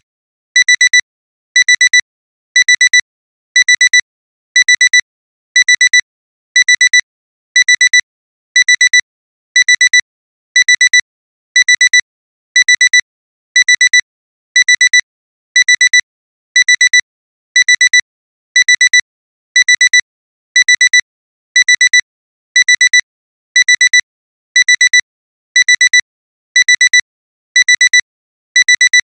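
Alarm clock's electronic alarm beeping without pause: high-pitched double beeps about once a second, the timer's signal that the time is up.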